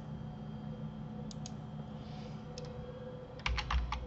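Computer mouse clicks in quick pairs, then a short run of keyboard key presses with a dull knock about three and a half seconds in, over a steady low hum.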